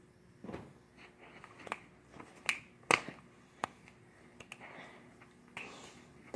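A person moving close by: scattered sharp taps and thuds with a few short rustles, the loudest a sharp knock about three seconds in.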